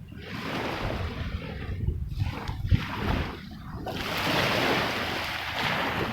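Water sloshing and splashing close by, in uneven surges, over a low rumble.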